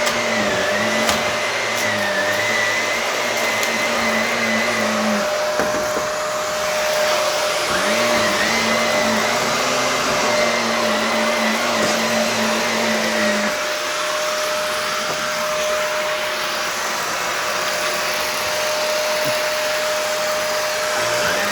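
Shark vacuum cleaner running steadily over carpet, with a constant whine. A lower hum in its sound drops away about a quarter of the way in, returns, and drops away again a little past halfway.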